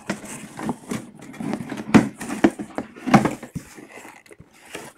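Cardboard box being handled and opened by hand: an uneven string of knocks, scrapes and rustles, sharpest about two and three seconds in.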